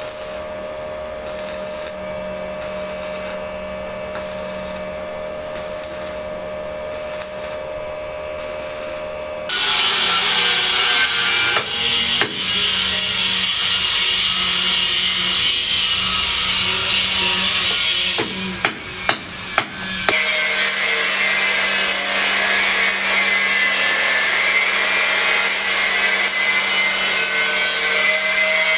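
Sawing on a building site. First comes a quieter rhythmic scraping, about one stroke a second. About ten seconds in, a much louder power cutting tool starts and cuts steadily with a whine. Around two-thirds of the way through it breaks off briefly with a few sharp knocks, then runs again.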